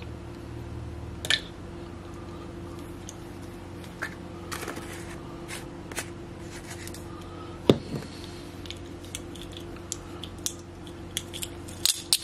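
Spice jar and plastic measuring spoons being handled: scattered clicks and taps, a sharper knock about two-thirds of the way through, and a clatter of the spoons near the end, over a steady low hum.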